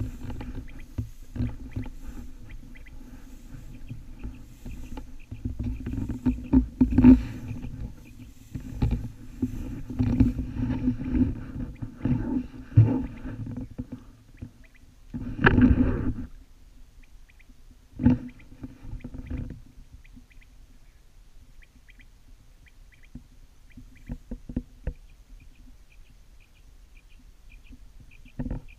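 Someone walking through tall wheat: stalks swishing against legs and the camera, with uneven footsteps and handling bumps, and the loudest swish lasting about half a second a little past the middle. It goes much quieter for the last third, leaving only faint high ticks and the odd small knock.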